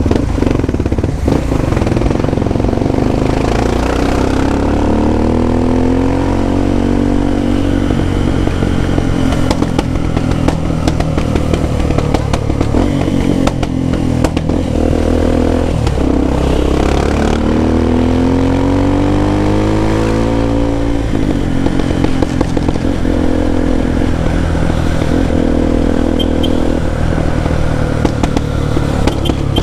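Single-cylinder engine of a Honda XR 250 Tornado running through a Belparts Classic aftermarket exhaust, at low speed. It rises in pitch twice as the throttle opens, then drops back and runs steadily between.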